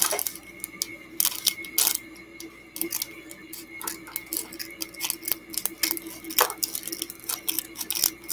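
Handling of LEGO pieces and their plastic packaging: an irregular run of sharp plastic clicks and crinkles, several a second, over a faint steady hum.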